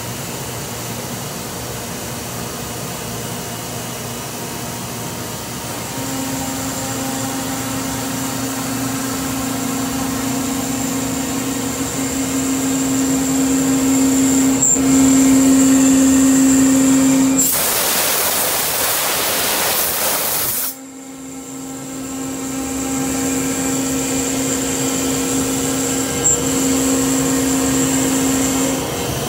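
Busellato Jet C21 CNC router's 11 kW electrospindle running with a steady whine while routing a wood panel, over the machine's constant running noise. Partway through, the whine gives way to a loud hiss of about three seconds that cuts off sharply, and then the whine builds back up as the spindle resumes cutting.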